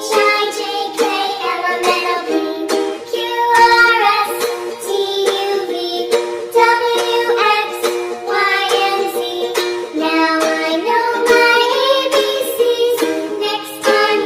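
Children's educational song: a sung voice over a light, rhythmic musical accompaniment.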